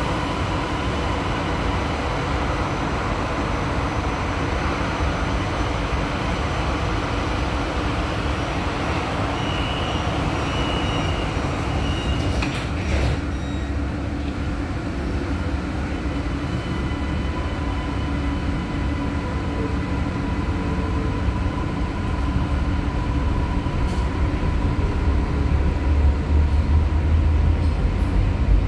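Interior of a Kajang Line MRT carriage (Siemens Inspiro) with a steady hum from the stationary train. A short run of high door-warning beeps comes about ten seconds in and the doors shut with a knock a few seconds later. Near the end a low rumble grows louder as the train starts to move off.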